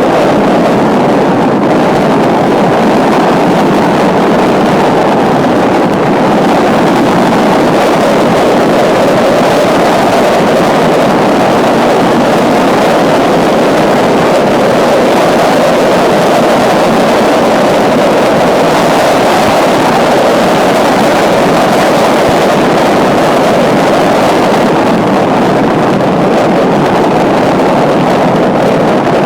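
Steady, loud wind rush over the microphone of a camera on a moving bicycle, an even roar with no distinct tones or knocks.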